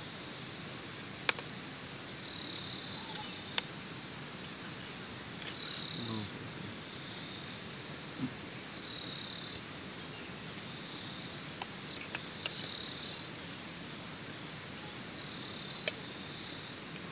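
A steady, shrill insect chorus with a slight dip about every three seconds, over a few sharp clinks of a steel spoon against a steel pot and plate as noodles are served.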